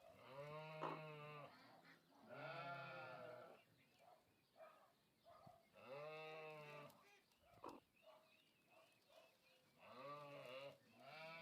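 Four drawn-out animal calls, each about a second long, rising and then falling in pitch, with short gaps between them.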